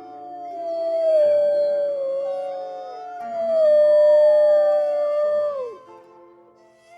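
Wolf howling: two long howls, each starting high and gliding slowly down in pitch, the second ending in a quick drop near its end, over soft held background music notes.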